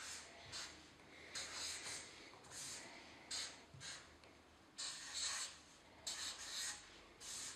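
Marker pen writing numbers on a sheet of paper: a faint series of short scratchy strokes with brief pauses between them, one for each line of the digits and signs.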